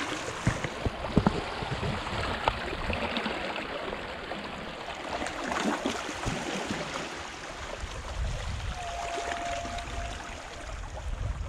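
Small waves lapping and washing among shoreline rocks and stones, with scattered small clicks. A brief steady tone sounds for about a second and a half near the end.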